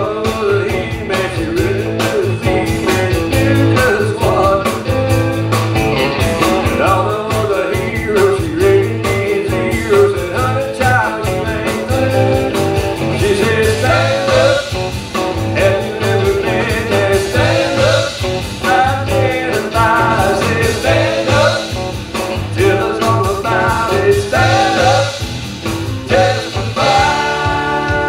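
Live rock band playing: electric guitars, electric bass and a drum kit, with singing. Near the end a chord is held and rings out.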